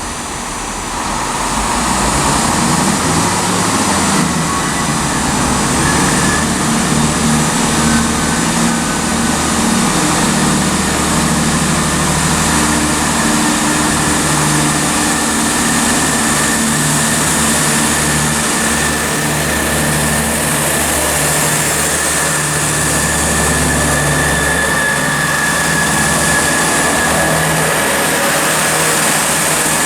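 Class 165 diesel multiple unit pulling away under power: its diesel engines make a steady low drone that builds over the first couple of seconds.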